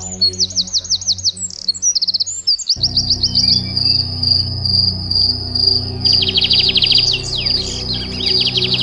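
Ambient background music with a low sustained drone, layered with rapid bird chirps and trills and, from a few seconds in, a steady high insect-like buzz. The low drone breaks off and restarts about three seconds in.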